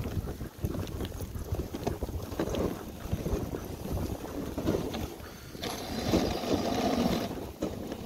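Dog sled gliding over packed snow behind a running husky team: the runners hiss and scrape, with wind on the microphone. The scraping grows louder and harsher for a second or two just past the middle.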